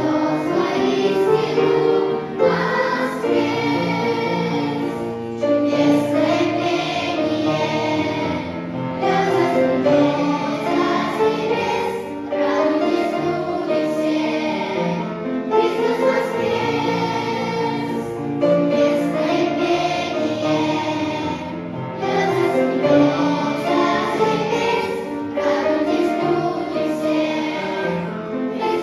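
A choir singing a Christian hymn, in phrases a few seconds long with short breaths between them.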